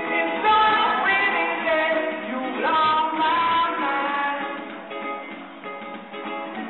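Live pop-rock band playing on stage, guitars with a singing voice, heard from the audience through a phone microphone that gives a thin sound with no deep bass or high treble. The music gets softer about four seconds in.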